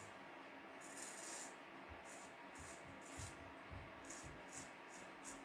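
Vintage Wilkinson Pall Mall safety razor with a roller guard scraping through stubble in a run of short, faint strokes, about ten in all.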